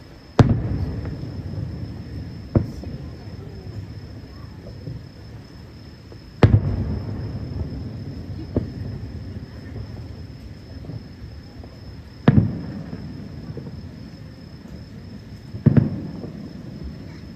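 Distant aerial firework shells bursting every few seconds, each a sharp boom trailing off into a low rumbling echo, with a close double boom near the end. A steady high insect trill runs underneath.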